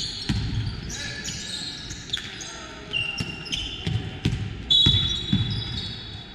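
A basketball bouncing on the gym floor in several dribbles, mixed with high squeaks of sneakers on the court.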